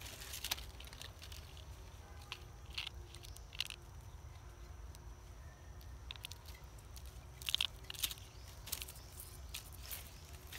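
Scattered crackles and sharp clicks of dry leaf litter and twigs stirred by macaques moving about, with a cluster of louder clicks about three-quarters of the way through, over a low steady rumble.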